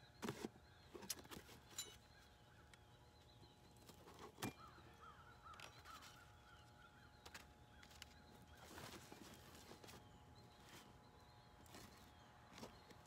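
Faint rustling, clicks and knocks of a cardboard box and its packaging being handled, with distant birds calling.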